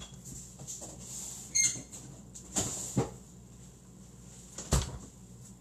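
Kitchen handling noises: four separate knocks and clunks. The first, about a second and a half in, carries a brief squeak; the sharpest is a dull thump near the end.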